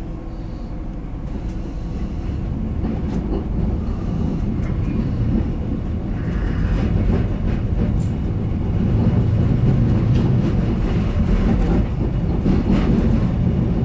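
Interior sound of a GTW 2/6 diesel railcar rolling through station tracks: a low engine and running rumble that grows louder as it gathers speed, with scattered clicks of wheels over rail joints and points.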